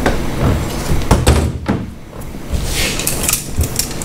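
A few sharp clicks and knocks, with a short rasp near the end, from a boat's mechanical steering wheel and push-pull steering cable being worked by hand.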